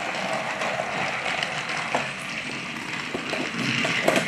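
Battery-powered Thomas TrackMaster toy engine running along plastic track, a steady whirring of its small motor and wheels, with a few clicks about two seconds in and near the end.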